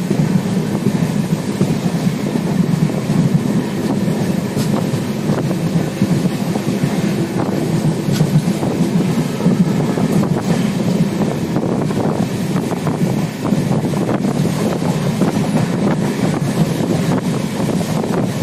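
Jan Shatabdi Express train running at speed: a steady rumble of wheels on the rails, with wind noise.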